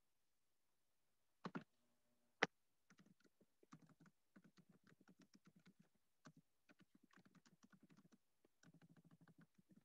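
Faint typing on a computer keyboard: runs of quick key clicks, several a second, with brief pauses between runs. Two louder knocks come before the typing starts.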